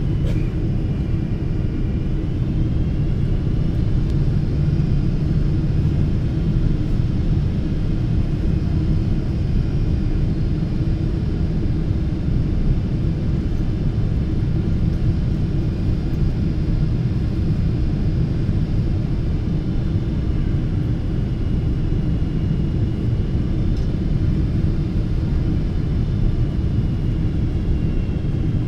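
Cabin noise inside a Boeing 777-300 airliner: a steady low rumble of engines and airflow, with a faint high engine whine that drifts slightly in pitch.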